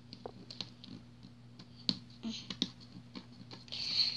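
Fingers scratching and tapping on a glossy cardboard scratch-off play mat: scattered light clicks with a couple of short rasping scratches, the longest near the end, over a faint steady hum.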